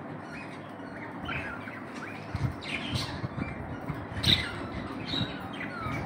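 A flock of budgerigars chirping and chattering, short squawks and gliding calls scattered throughout, the loudest about four seconds in. Low knocks join in from about two seconds in.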